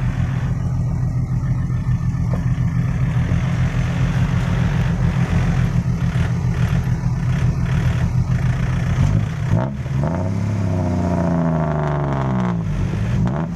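Diesel engines of a loaded six-wheel dump truck and a tractor pushing it, running hard with a loud exhaust as the truck struggles to climb out of loose laterite where it is stuck. About ten seconds in, the engine pitch starts swinging up and down as the engines are revved.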